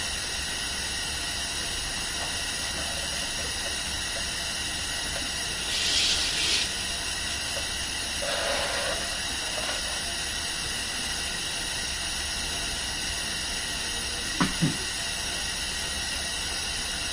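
Hospital room ambience: a steady background hiss, with a brief louder rush of noise about six seconds in and two quick knocks near the end.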